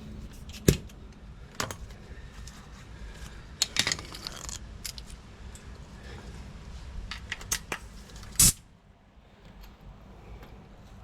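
Scattered sharp metallic clicks and clinks of small parts and tools being handled, with a short clattering rattle about four seconds in and the loudest clicks about a second in and a little after eight seconds.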